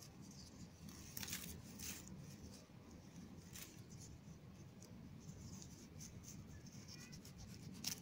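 Faint rustling of grass and short snips of a small knife cutting wild cress stems among the weeds: a few quick strokes about a second in, one more a little later, and another near the end, over a faint low rumble.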